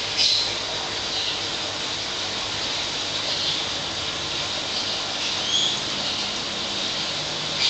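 Steady rush of water from the aquarium's filtration, with a few short high chirps: one just after the start, others about three and five and a half seconds in, and one at the very end.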